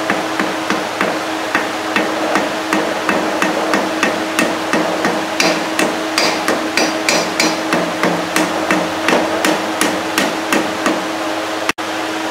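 Hammer tapping a new water seal down into the bearing housing of a large commercial washer, seating it: an even run of sharp taps, about two to three a second, that stops about eleven seconds in. A steady hum runs underneath.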